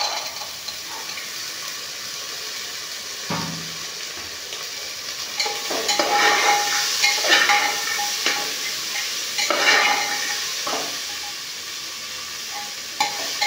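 Chickpeas sizzling in hot masala in an aluminium pressure cooker as a ladle stirs them. A knock comes about three seconds in, and from about five seconds on the ladle scrapes the pot in repeated strokes, roughly one a second.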